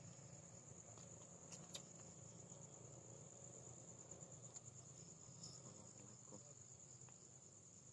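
Near silence, with the faint steady high-pitched chirring of crickets and a couple of faint ticks about a second and a half in.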